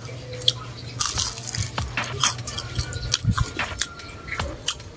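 Close-up crunching and chewing of a deep-fried dynamite lumpia, a chili spring roll with a crisp wrapper, as it is bitten and eaten: many short crackling crunches, loudest about a second in, over a steady low hum.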